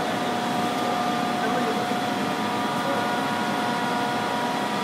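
Steady hum of heavy machine-shop machinery, with two steady whining tones over it and no change in level.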